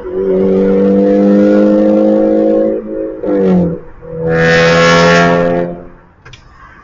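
Honda Civic engine and exhaust revved and held at a steady high pitch for a couple of seconds, dropping briefly, then held again for about a second and a half before falling away.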